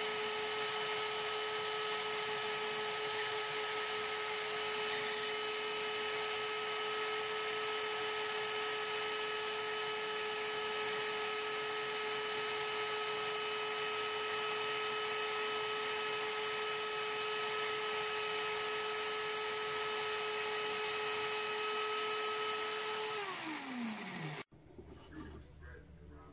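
Drill press running at a steady speed, spinning a wooden wheel on a bolt mandrel while it is sanded round, a steady whine over a hiss. Near the end the motor is switched off and winds down, its pitch falling, and then the sound cuts off.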